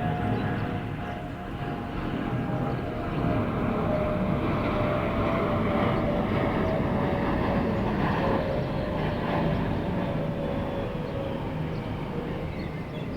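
Jet airliner on landing approach passing low overhead: a loud rumble with a steady whine that slowly falls in pitch, building about three seconds in and easing off near the end.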